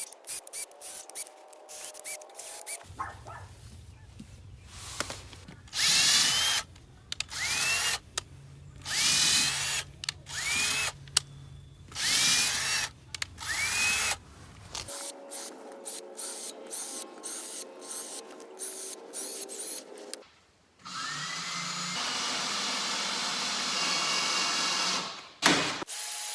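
Power drill run in repeated short trigger bursts, the motor whining up in pitch each time it starts, then a longer steady run near the end.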